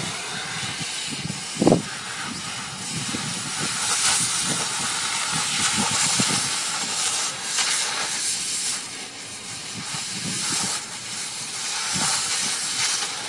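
Oxy-fuel cutting torch hissing steadily as it burns through a steel railway rail, with one short loud thump about two seconds in.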